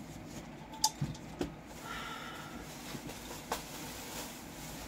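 Quiet handling noises from items being moved about in a closet: a few light knocks and clicks, with a faint brief high tone about two seconds in.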